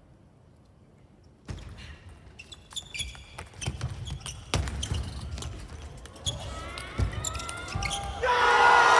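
Table tennis doubles rally: the celluloid ball clicks sharply off bats and table, with shoes squeaking and feet thudding on the court floor. It starts after a near-silent second and a half, and near the end loud crowd cheering and applause break out as the point is won.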